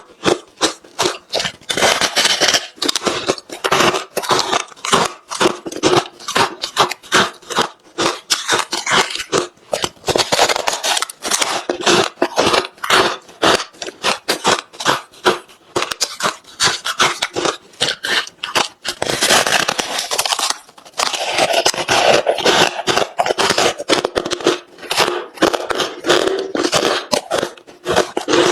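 Close-miked crunching of hard refrozen crushed ice between the teeth: a dense, continuous run of sharp crunches and cracks as mouthfuls are chewed.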